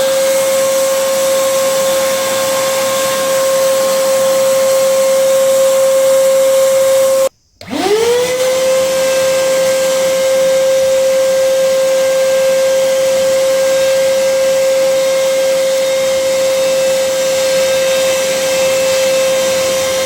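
Eureka Forbes dry vacuum cleaner running under suction as it picks up dust, a steady high motor whine over a rushing hiss. About seven seconds in it stops abruptly, then winds up again to the same pitch.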